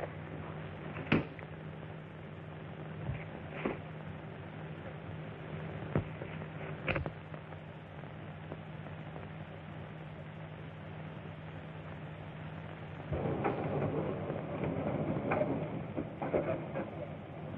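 Steady hum and hiss of an old optical film soundtrack, broken by a few sharp clicks or knocks, with a louder stretch of noise and clicks from about 13 seconds in.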